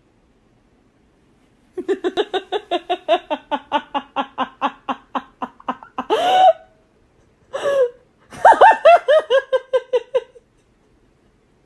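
A person laughing hard: a long run of rapid pitched 'ha' pulses, about five a second, broken by two high squealing gasps, then a second run of laughter that dies away.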